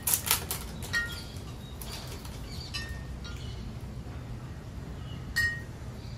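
Plastic wrapper of a mini KitKat crinkling in the fingers as it is opened, in scattered crackles with a sharper one about five seconds in.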